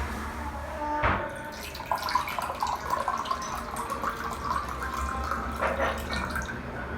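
Water running from a tap and splashing in a sink.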